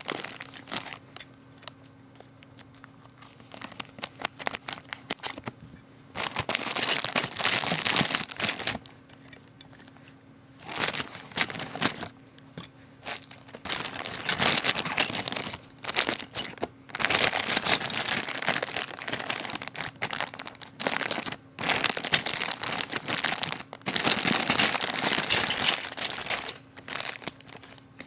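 Clear plastic bags of toy-kit parts crinkling and rustling as they are handled, in repeated bouts of a few seconds with quieter pauses between.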